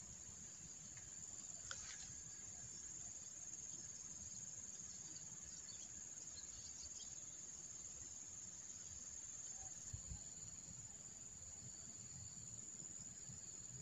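Insects chirring in one steady, unbroken high-pitched drone. A brief sharp click comes about two seconds in and a soft thump near ten seconds.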